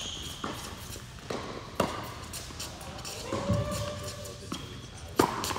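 Tennis rally on an indoor hard court: sharp pops of racket strikes and ball bounces, a few seconds apart, the loudest hit near the end. Shoes squeak on the court surface.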